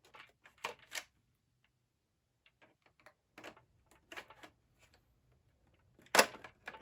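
Irregular plastic clicks and knocks from the McFarlane Toys Riddler puzzle box being handled, with the loudest knock near the end.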